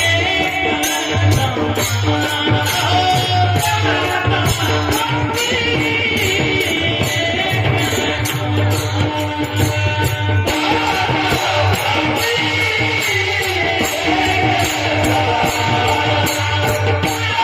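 Warkari devotional bhajan: a male singer's voice carrying a melody over steady held instrumental tones, with small hand cymbals striking a regular beat.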